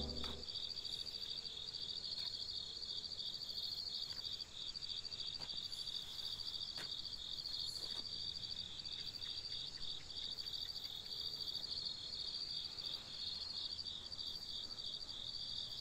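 Crickets chirping in a steady, rapidly pulsing high-pitched chorus, with a few faint clicks.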